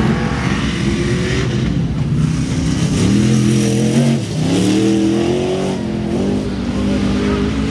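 Off-road race truck engine revving hard under acceleration, its pitch climbing, dropping sharply about four seconds in, then climbing again as it powers through the dirt corners.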